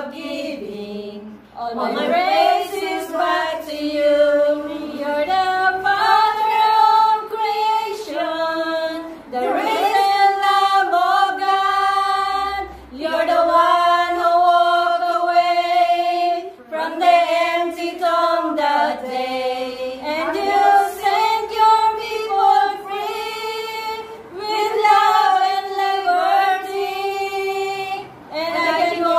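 A small group of women singing a worship song together without accompaniment, in long held phrases with short breaks for breath.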